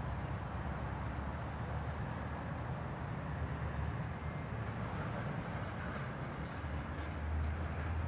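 Steady low rumble and hiss of a moving vehicle, heard from inside.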